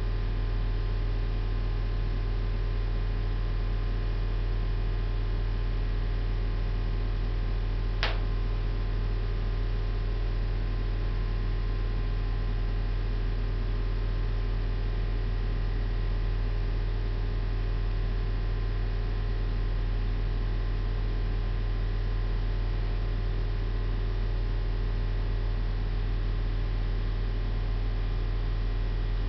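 Steady low electrical mains hum, with one short click about eight seconds in.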